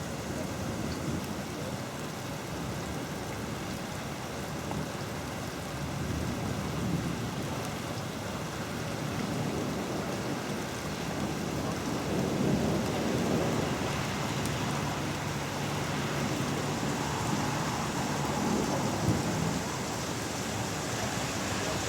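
Heavy rain pouring steadily, with low rumbling swells that grow louder around the middle.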